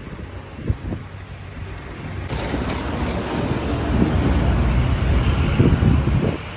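Street noise: a steady rumble of traffic mixed with wind on the microphone, turning louder and fuller suddenly about two seconds in.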